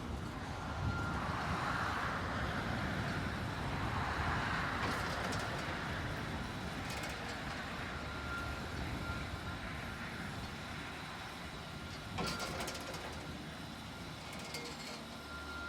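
Electric-motor-driven oil-well beam pump (pumpjack) running, a steady mechanical sound with a faint, steady high whine, under wind rumble on the microphone. A single sharp knock sounds about twelve seconds in.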